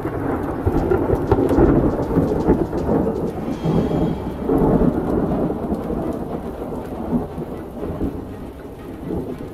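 Thunder rumbling and rolling over steady rain, loudest in the first half and slowly fading toward the end.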